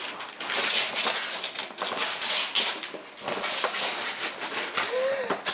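Gift-wrapping paper being torn and crumpled as a large present is unwrapped: a steady crackling rustle with many quick rips.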